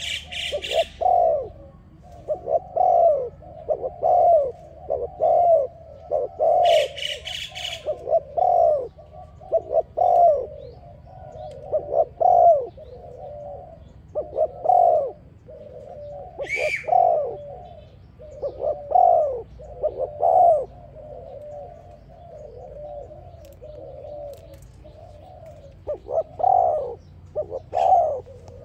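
Spotted dove cooing over and over, in phrases of low arched coos. A few short bursts of higher chirping from another bird come near the start, about seven seconds in, and near the middle.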